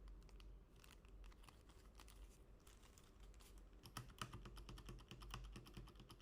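Typing on a mechanical keyboard: a run of quiet key clicks that comes faster and louder about four seconds in.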